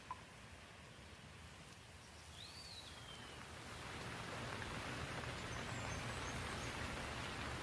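Steady rain hiss that swells in over a couple of seconds and then holds. A single bird call rises and falls about two and a half seconds in.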